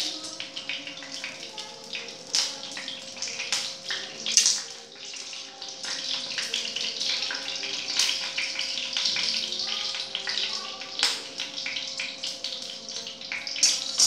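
Mustard oil sizzling and crackling in a frying pan, with many sharp pops over a steady hiss, and a steady hum underneath.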